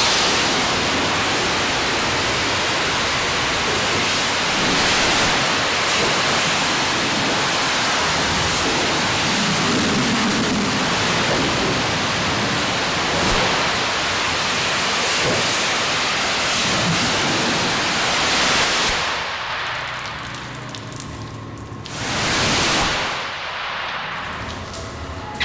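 High-pressure washer spray rinsing down a dump truck: a steady, rain-like hiss of water jetting and splashing off the body. It stops about 19 seconds in, with one short burst of spray a few seconds later.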